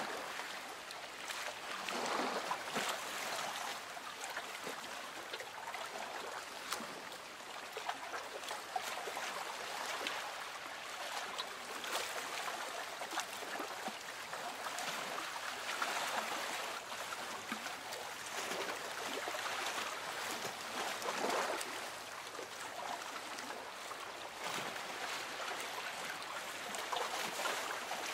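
Gentle lake water lapping and trickling against a small boat's hull, swelling and easing every few seconds, with small splashes.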